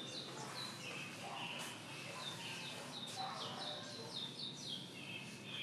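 Many short, high-pitched chirping calls, each falling in pitch, overlapping and repeating throughout over a steady background hum.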